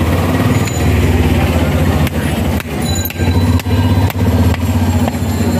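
A small engine running steadily with a low hum, and several sharp knocks about half a second apart in the middle.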